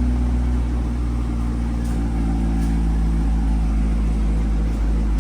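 Car engine running steadily with a deep, even low hum.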